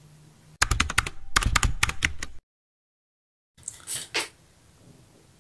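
A quick run of sharp clicks and taps for about two seconds, like keys being pressed, that cuts off into dead silence; a few fainter clicks follow about a second later.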